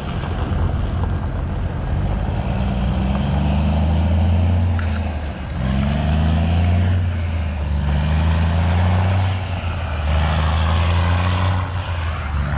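Truck engine running under load. Its pitch climbs and then drops back several times, about every two seconds.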